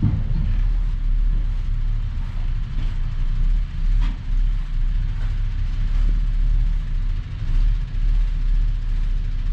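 Diesel semi-truck engine running at low revs as the truck slowly reverses its trailer, a steady low rumble.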